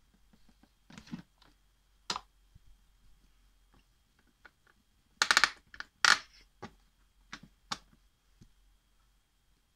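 Plastic clicks and knocks from the knobs of a toy washing machine being turned and pressed. Two louder clattering bursts come about five and six seconds in, followed by a few single sharp clicks.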